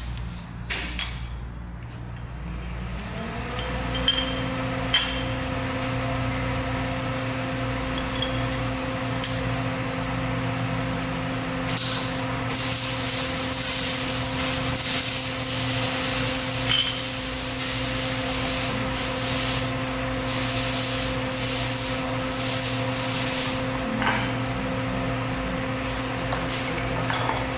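A workshop machine motor spinning up about three seconds in and then running with a steady hum. Over it come a few sharp metal clinks, rubbing and handling noise, and stretches of hissing.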